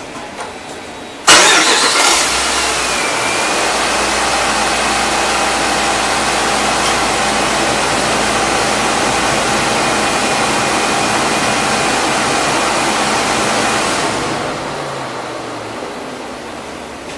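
A Dodge Ram 1500's 5.7-litre Hemi V8 starting about a second in with a sudden loud catch, then idling steadily; this is its first start after an oil and filter change, run to check for leaks. The sound drops away over the last few seconds.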